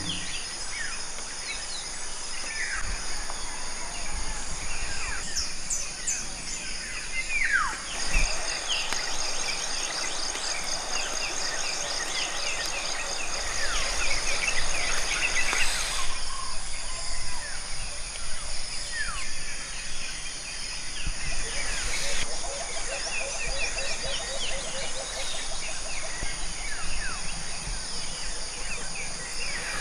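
Forest ambience of many birds calling with short downward-sweeping whistles over a steady high insect hum, which pulses rapidly through the middle. A low, fast trill joins in the last third.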